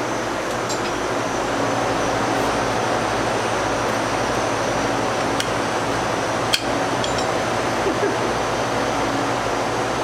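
Steady machine hum and hiss, with a few sharp metallic clinks, the loudest about six and a half seconds in.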